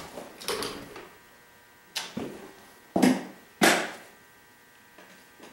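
Four sharp knocks from hands working a benchtop thickness planer, spaced unevenly over about three seconds, each dying away quickly. The planer's motor is silent between them: it has stopped working, which the owner puts down to the motor.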